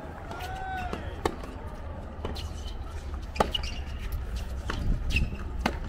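Tennis rally on a hard court: several sharp pops of racket strings hitting the ball, roughly one a second, the loudest about halfway through. A few short high squeaks of shoes on the court come in between, over a steady low rumble of the crowd.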